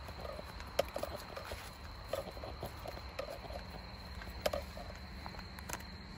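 Footsteps and rustling through grass, with two sharp light knocks, over a steady high-pitched insect trill.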